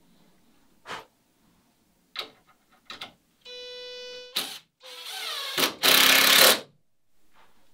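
Handheld power drill/driver fastening a wooden ribband to a boat mold. First come a few sharp knocks, then the motor whines steadily for under a second. After another knock it runs again with its pitch sagging under load, and ends in about a second of loud, harsh grinding as it bites into the wood.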